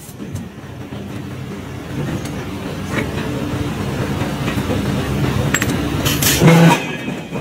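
Forging press running with a steady low hum that slowly builds, a few sharp metallic clicks, and a louder metallic clang a little before the end.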